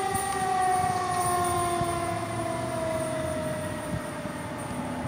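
Fire engine's Federal Q mechanical siren winding down, its wail falling slowly and steadily in pitch.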